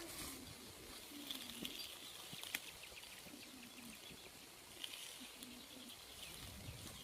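Faint calls of small wild birds: short low wavering notes and a few brief high chirps, with scattered light clicks and rustling.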